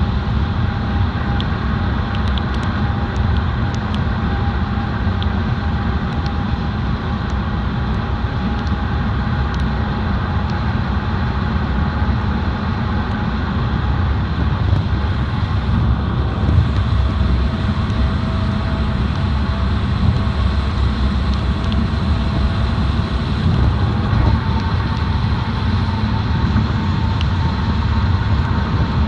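Steady low rumble of a car driving, heard as continuous road and engine noise. A faint steady whine sits above it and shifts to a different pitch a couple of times.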